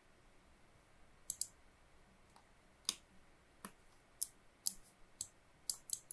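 A computer mouse's left button clicking: about nine short, sharp single clicks at uneven intervals, starting about a second in.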